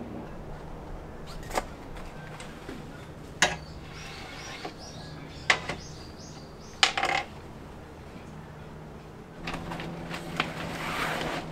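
Camping gear being packed up: a few sharp knocks and clatters of equipment being handled, the loudest about seven seconds in, then rustling near the end. A bird chirps faintly in the middle.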